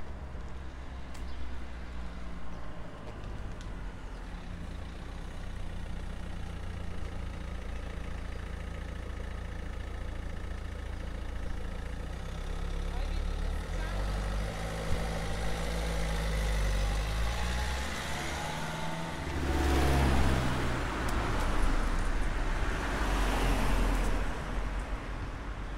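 Street traffic: motor vehicle engines running, with one vehicle passing close and louder about twenty seconds in.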